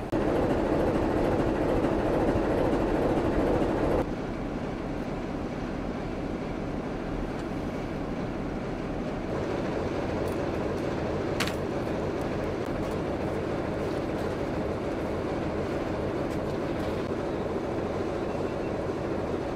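Steady rumble of an armoured military train. It drops suddenly to a slightly quieter level about four seconds in, and one sharp click comes a little past the middle.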